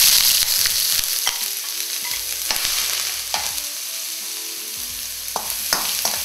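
Chopped onions sizzling in hot vegetable oil in a stainless steel kadai: a loud burst of sizzle as they hit the oil, easing into steady frying. A spatula knocks against the pan a few times as they are stirred.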